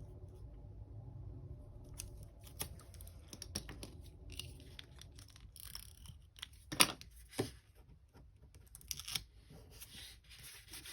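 Planner sticker sheets being handled and stickers peeled off: soft paper rustling and light crinkling, with a few sharper snaps and taps partway through.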